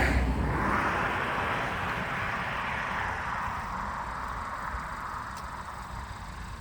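A car's tyre and engine noise fading away as it passes and recedes, over a low rumble.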